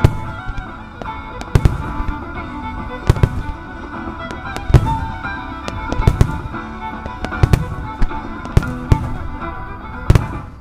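Starmine firework shells bursting overhead: a dozen or so sharp booms, about a second apart, some in quick pairs. Music with long held notes runs beneath them.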